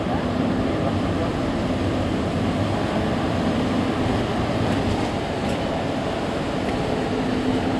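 Mercedes-Benz Citaro C2 Hybrid city bus standing still with its diesel engine idling: a steady low hum with a few constant tones and no change in revs.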